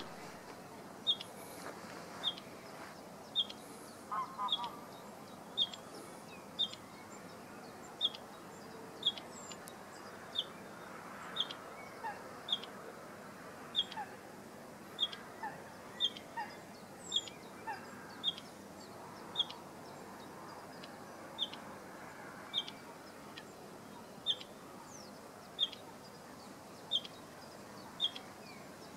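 Bluethroat calling a short, high note about once a second, over and over. It is the repeated call of a parent bird carrying an insect for its young.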